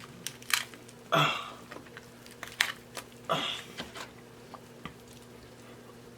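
Close-miked eating of seafood boil: wet lip smacks, chewing and clicks, with two louder sucking sounds about one and three seconds in, the sounds thinning to small ticks near the end.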